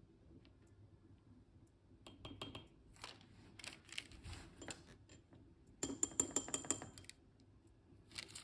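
Small metal spoon clicking and scraping against a small ceramic dish and a paper packet while gold powder is spooned out, with light paper rustling. The busiest, loudest run of quick taps, with a thin high ringing, comes about six seconds in.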